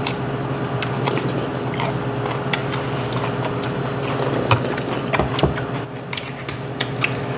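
People eating at a table: chewing and sipping, with many small clicks of spoons and chopsticks against stoneware bowls and dishes, over a steady low hum.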